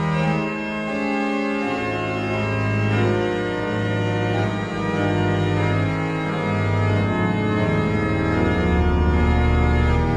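Organ music: held chords over a bass line that moves to a new note every second or so.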